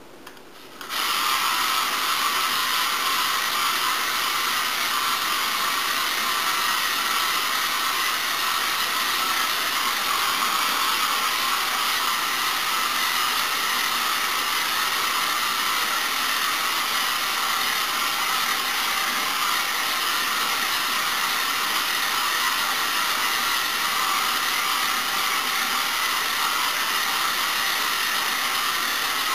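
Small electric motor and gearing of an XMods radio-controlled car running flat out with a steady, high whine and hiss, coming on about a second in and holding even.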